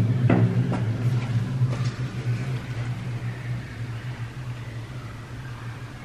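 A low, steady hum inside a concrete drain tunnel that slowly fades, with a few faint clicks in the first two seconds.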